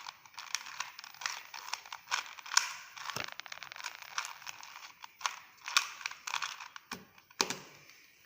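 Plastic 2x2 puzzle cube being turned by hand: irregular clicks and rattles of the layers snapping round, with a quick run of clicks about three seconds in.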